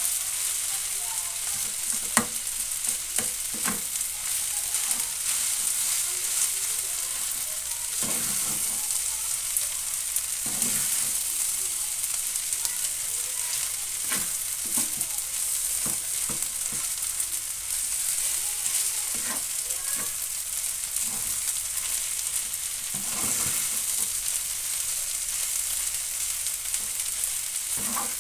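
Fried rice with salted mustard greens stir-frying in a frying pan: a steady sizzle, with a metal spatula repeatedly scraping and knocking against the pan as the rice is tossed.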